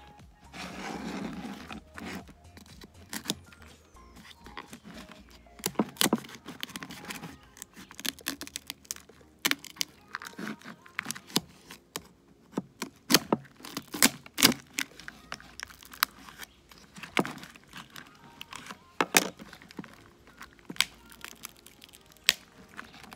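Lobster shell being cracked and broken apart with a tool: irregular sharp cracks and knocks, some single and some in quick pairs, with a brief rustle about a second in.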